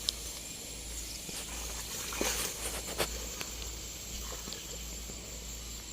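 Outdoor ambience: a steady high hiss with a thin, high, unbroken drone, and a few sharp clicks, two of them about two and three seconds in.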